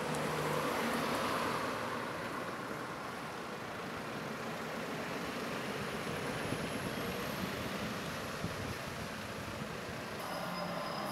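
Road traffic noise: a vehicle passes in the first couple of seconds, then a steady traffic hum continues.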